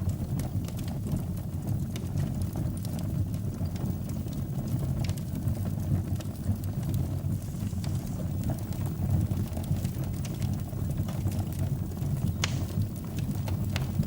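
Fire burning in a fireplace: a steady low rumble with scattered small crackles and one sharper pop about twelve seconds in.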